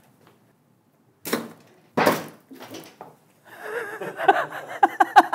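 A pedal bin's metal lid knocking open and fried chicken pieces being dumped into it: two sharp knocks about a second and two seconds in, the second ringing on briefly, with a softer knock after.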